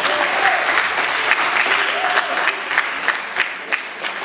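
An audience applauding, with a few voices mixed in, thinning out to scattered single claps near the end.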